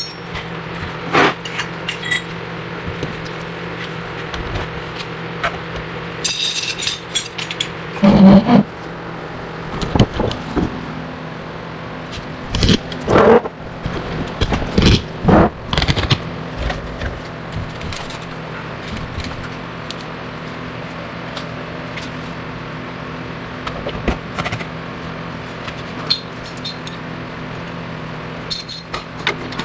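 Metal tools clanking, knocking and scraping against suspension parts while the ball joints are pressed apart, over a steady low hum. The loudest clanks come about eight and thirteen seconds in.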